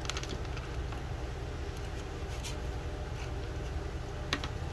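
A few faint clicks and taps from handling a Dremel rotary tool and the plastic coupling nut of its flex-shaft attachment, over a steady low background rumble.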